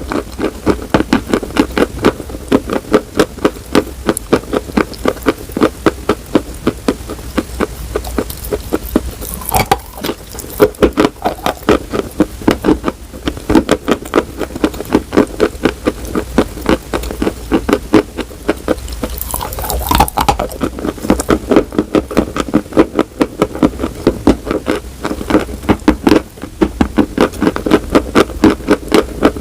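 Crunching while chewing something hard and brittle, a few sharp crunches a second in a steady run.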